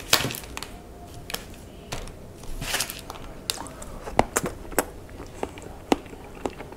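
Scattered light clicks and taps of an eating utensil against a plate as a slice of frozen ice cream pie is taken up to eat, about a dozen, irregularly spaced.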